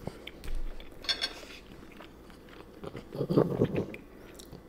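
A person chewing a mouthful of scrambled eggs close to the microphone, with a crunchy bite about a second in. A short rough burst of sound about three seconds in is the loudest part.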